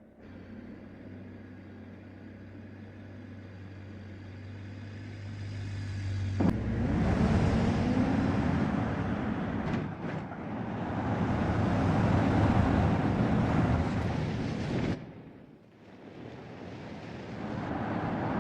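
A vehicle engine running with a steady low hum, then sharply louder from about six seconds in, rising in pitch like revving. It holds loud for several seconds, dips briefly near the end and builds again.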